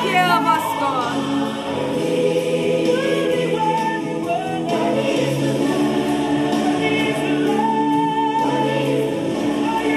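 Gospel worship music with a choir singing long, held notes over a steady accompaniment.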